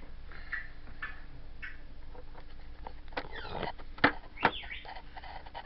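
African grey parrot making small chirps, then a burst of squeaky notes gliding up and down and two sharp clicks.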